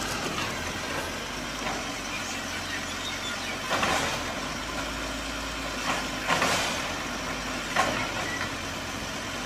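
Truck engine idling steadily, with a few short louder noises about four, six and eight seconds in.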